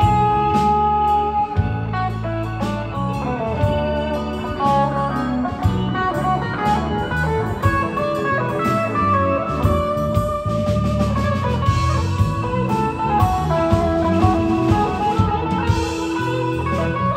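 Live band playing an instrumental passage: an electric guitar lead line with sustained, bending notes over bass guitar, drum kit and keyboard.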